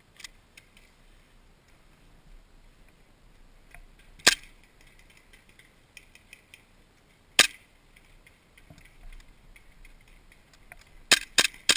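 Gas-powered airsoft gun firing: a single sharp shot about four seconds in, another about seven seconds in, then a quick string of three or four shots near the end.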